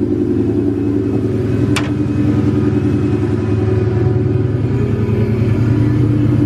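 Whipple-supercharged Mustang Cobra V8 idling with a steady, pulsing beat, with one short sharp click about two seconds in.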